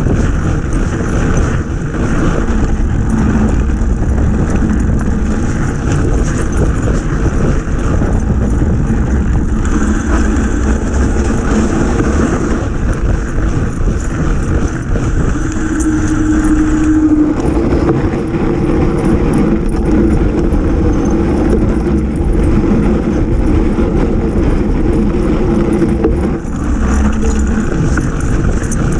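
Steady rumble and wind noise of a fat-tire bike rolling downhill over packed snow, picked up by a camera mounted on the bike. A low hum joins about halfway through and drops out near the end.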